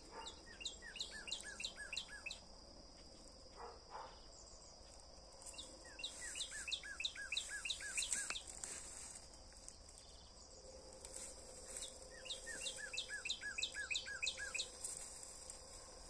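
A songbird sings three phrases of quick repeated notes, each phrase about two to three seconds long with pauses between, over a steady high-pitched drone of insects.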